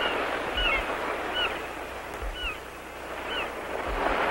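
Steady wash of ocean surf, with about five short cries from birds spread across the first three and a half seconds, each a quick rise and fall in pitch.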